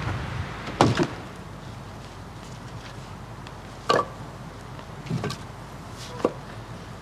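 A handful of separate sharp knocks, the loudest about four seconds in, over a steady low hiss.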